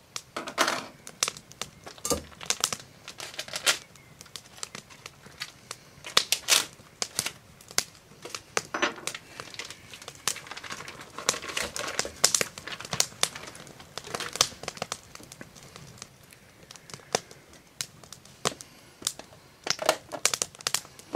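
Plastic meat package crinkling as it is opened and ground moose meat is squeezed out of it into a stainless steel mixing bowl, with many small irregular clicks and knocks of handling.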